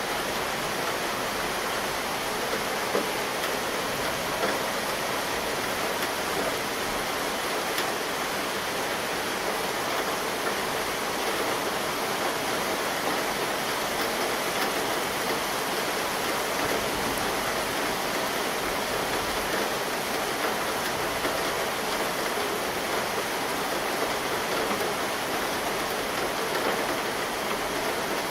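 Rain falling steadily in a summer thunderstorm, an even hiss throughout.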